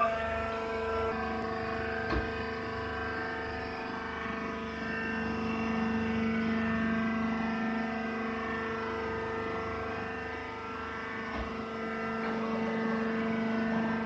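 Hydraulic baler's power unit, electric motor and pump, running with a steady drone made of a low hum and several held higher tones. A light click sounds about two seconds in.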